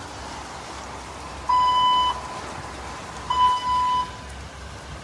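Two electronic censor bleeps: a flat, steady high beep tone sounding twice, each a little over half a second long and about a second apart, switching on and off abruptly over low steady background noise.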